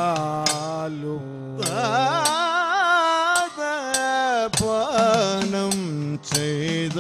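Kathakali vocal music: a male voice sings a slow, heavily ornamented melody with wavering, gliding notes. Sharp percussion strokes fall at irregular intervals throughout, and a low sustained tone under the voice stops about two seconds in.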